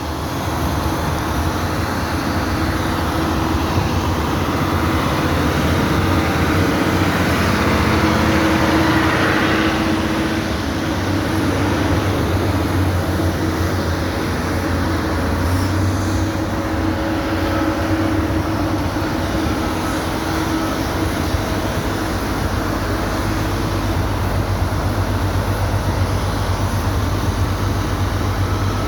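A steady engine rumble with a constant low hum, swelling slightly for a few seconds partway through.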